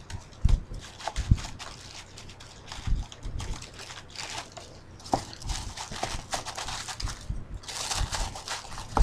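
A packaging bag rustling and crinkling as it is handled, with scattered small knocks and clicks and two louder spells of crinkling, about four seconds in and near the end.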